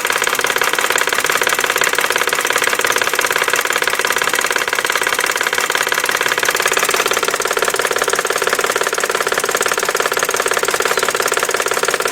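1999 BMW 540i's 4.4-litre V8 idling steadily with a fast, even knocking, a knock that the owner places on the passenger side of the engine.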